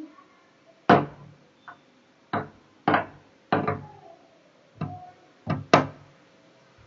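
A bird striking a glass window pane again and again: about seven sharp knocks at irregular intervals, each ringing briefly.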